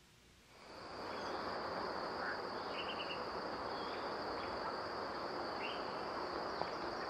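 Evening outdoor nature ambience fading in: insects trilling steadily on one high note, with a few short bird chirps over a soft steady hiss.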